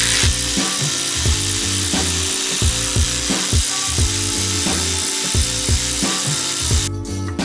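A socket ratchet being worked continuously, a dense rasping that cuts off abruptly about seven seconds in, over background music with a steady beat.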